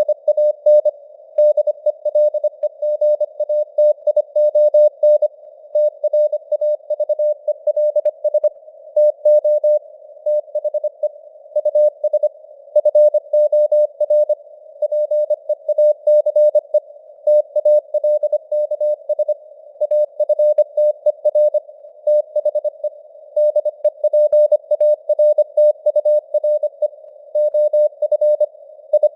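Morse code (CW) sent at 25 words per minute: a single mid-pitched tone keyed on and off in dots and dashes, over a narrow hiss of simulated radio noise, with the signal strength varying (QSB fading).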